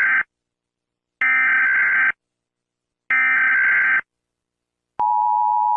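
Emergency Alert System SAME header: harsh digital data screeches, each lasting about a second with a second's gap between them, the tail of one and then two more. About five seconds in, the steady two-tone EAS attention signal begins, announcing the alert message that follows.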